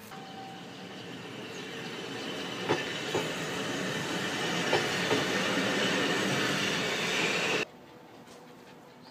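Electric railcar passing close by, growing steadily louder, with a few clacks of its wheels over rail joints and a high wheel squeal building up. It cuts off abruptly near the end, leaving only quiet street background.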